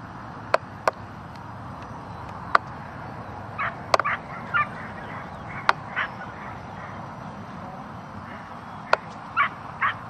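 Dogs barking in short bursts, a cluster of barks about four seconds in and another near the end, with sharp clicks scattered between.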